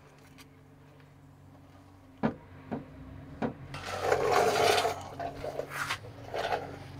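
Three sharp knocks, then a loud scrape of about a second and a half and a few shorter rubbing scrapes, as a rebuilt truck cab hinge is handled and worked into place. A faint steady low hum runs underneath.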